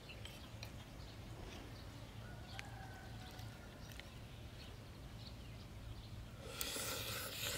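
A spoon clicking and scraping lightly on a plate, then, about six and a half seconds in, a loud crunchy bite and chewing of deep-fried frog.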